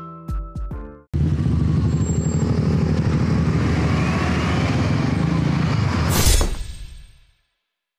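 Plucked-note music ends about a second in, then a motorcycle under way, its engine under a heavy rush of wind noise. There is a sharp, loud knock about six seconds in, and then the sound fades out.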